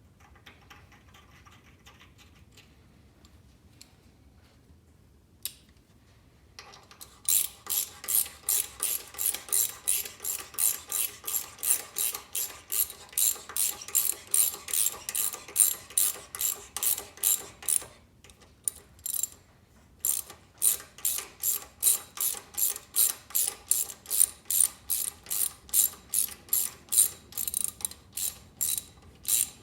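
Ratchet clicking in an even rhythm, about two to three clicks a second, as a tap is turned by hand to chase existing threads. It starts about a quarter of the way in and stops for a couple of seconds about two-thirds of the way through.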